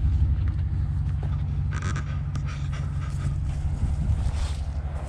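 A vehicle engine running at a steady low idle, with a few brief rustling noises about two seconds in.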